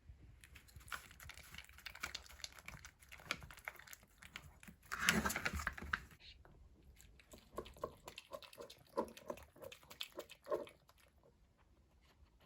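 Food being prepared by hand: a busy run of small clicks, taps and rustling, loudest as a rustle about five seconds in, then a string of short sharper taps that stops about ten seconds in.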